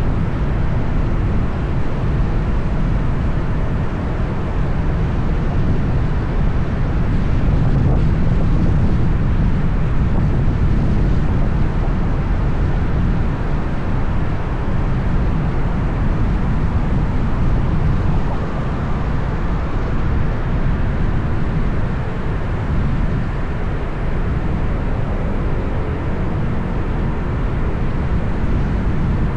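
Steady city traffic noise: a continuous low rumble of engines and tyres on the road.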